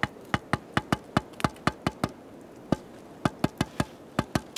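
A wooden baton tapping the spine of a knife in quick light strikes, about four or five a second with a short pause midway, driving the blade into a green stick to cut a notch.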